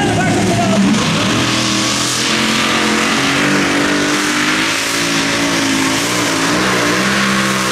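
Competition pulling tractor's engine running at high revs under load: a loud, steady drone whose pitch wavers slightly about halfway through.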